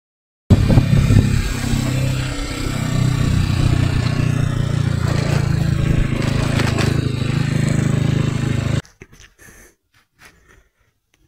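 Small motorcycle engine running steadily while the bike is ridden along a dirt road, with road and wind noise. It ends abruptly about nine seconds in, leaving only faint rustling and a few light clicks.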